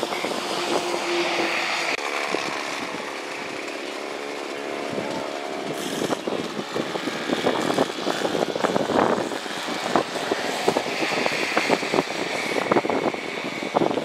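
Gusting wind buffeting the camera microphone, a steady rush that grows choppy with irregular buffets from about halfway through.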